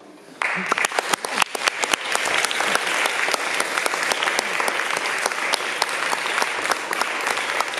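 Audience applause breaking out suddenly about half a second in: many hands clapping densely and steadily.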